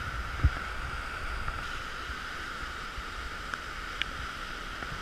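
Steady rush of a flooded river's fast-moving water, with a low rumble underneath and a single thump about half a second in.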